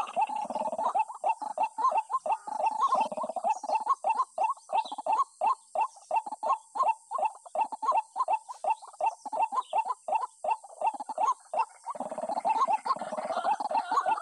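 White-breasted waterhen calling: a long run of short repeated call notes, about four a second, fuller and more jumbled at the start and again near the end.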